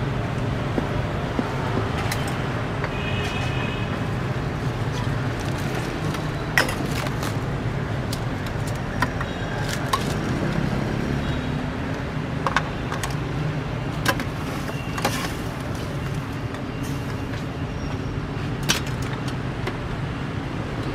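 Steady low street-traffic rumble, with several sharp clinks of metal ladles and utensils against steel pots and bowls at a noodle stall.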